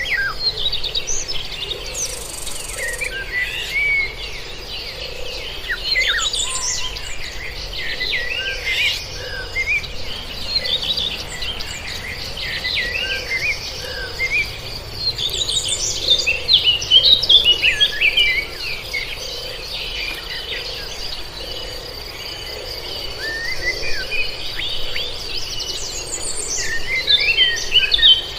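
Several birds chirping and singing in quick, busy phrases, over a steady high-pitched insect drone.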